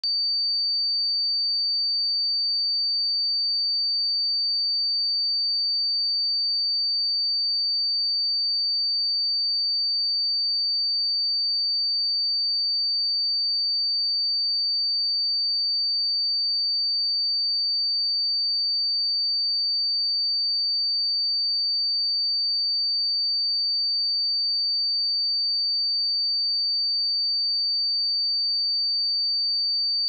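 A pure 4602 Hz sine-wave test tone held at a steady pitch and level: one continuous high-pitched whistle-like tone, used for checking speakers and headphones.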